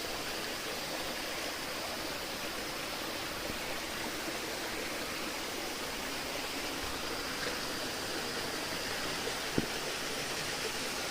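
Spring water flowing with a steady rushing sound, with one short click about nine and a half seconds in.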